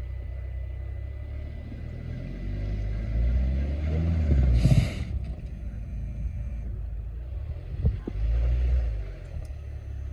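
Car engine revving in two surges over a low idle, the first building for about two seconds to a peak with a brief hiss, the second shorter near the end, as the driver tries to power a car stuck in snow free.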